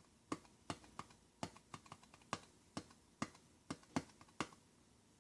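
Light, evenly spaced taps, about ten at a little over two a second, as ground thyme is tapped out into a measuring spoon. They stop about four and a half seconds in.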